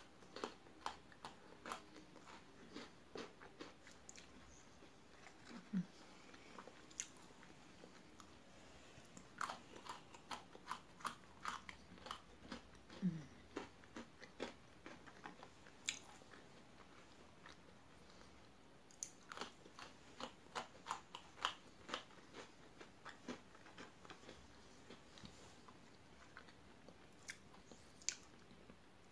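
Pocky chocolate-coated biscuit sticks being bitten and chewed close to the microphone: a long run of small, sharp crunches, with a few short pauses.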